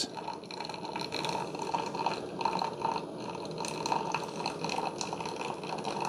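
Freshly brewed coffee trickling in a thin, steady stream from a Ninja CM401 coffee maker's brew basket into its glass carafe while the machine is still brewing.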